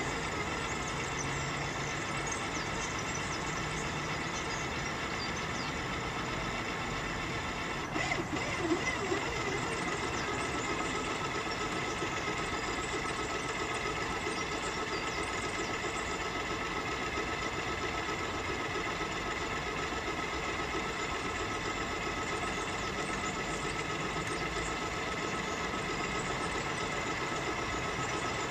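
The small boat's motor runs at a constant speed with an even whine full of overtones. A brief knock comes about eight seconds in.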